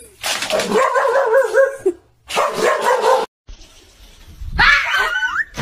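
A dog vocalizing in two long, wavering bouts, then, after a short break, a louder rising-and-falling cry near the end.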